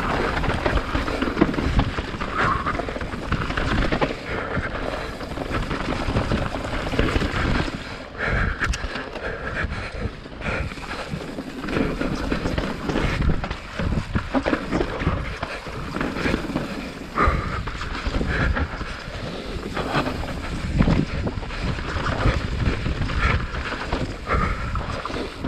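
2019 YT Jeffsy mountain bike riding fast down a dirt singletrack: tyres on dirt and roots with frequent knocks and rattles from the bike as it hits bumps, and wind buffeting the microphone.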